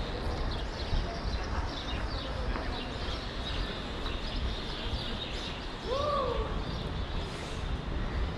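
City street ambience while walking: a steady wash of traffic and distant voices, with high chirps scattered throughout. A single short call rises and falls in pitch about six seconds in.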